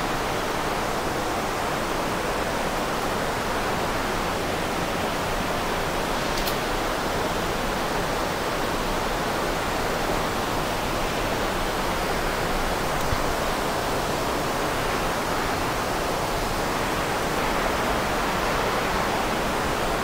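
Steady, even rush of an underground river and waterfall flowing through a cave.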